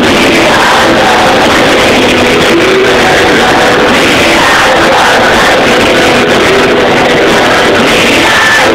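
Live rock band playing with electric guitar, very loud and steady as heard from the audience.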